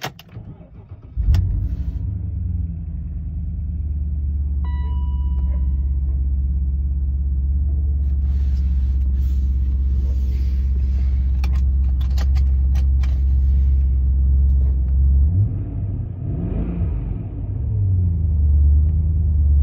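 2003 BMW E39 M5's 4.9-litre V8 firing on a cold start about a second in, then idling steadily and loudly. A short chime sounds about five seconds in, and the idle wavers briefly near the end.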